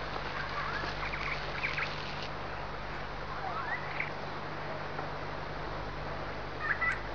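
Short chirping animal calls, a few quick rising and falling notes, about a second in, around four seconds in and again near the end, over a steady background hiss.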